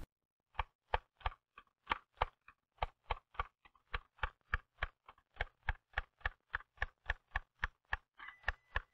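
Typewriter keys struck one after another in an even, steady run of about three to four strokes a second with short, regular gaps: a learner typing at an intermediate speed as the pauses between strokes shorten.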